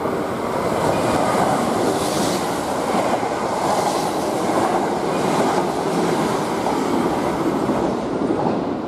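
Kintetsu limited express train passing through the station at speed without stopping: a loud, steady rush of wheel and rail noise as the cars run by close on the near track.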